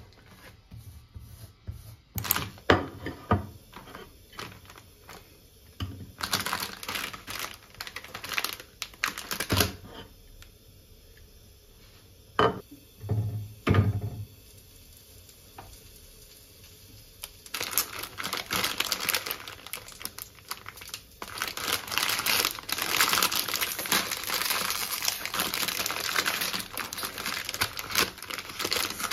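Household handling sounds: scattered knocks and clicks, then from a little past halfway a long stretch of continuous crinkling, like packaging being handled, with background music.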